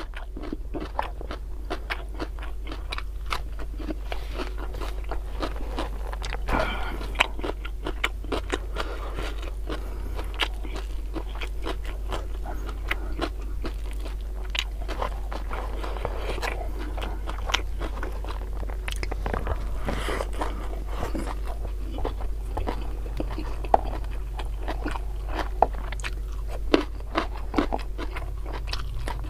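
Close-miked chewing, biting and crunching of food in a mukbang, with many short sharp mouth clicks scattered throughout, over a steady low hum.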